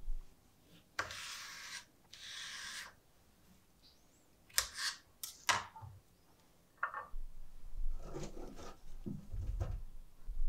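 Kitchen handling sounds during food preparation: two rustling scrapes of about a second each, a few sharp clicks, then more rustling and soft thumps near the end.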